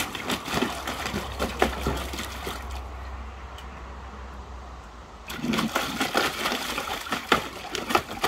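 A giant schnauzer puppy splashing and pawing at the water in a shallow plastic paddling pool, in short irregular splashes. It goes quieter for a couple of seconds near the middle, then the splashing picks up again from about five seconds in.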